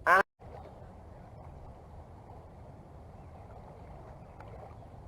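Steady outdoor riverbank ambience: an even, low wash like moving river water, with a few faint ticks. It begins just after a clipped word and an abrupt cut.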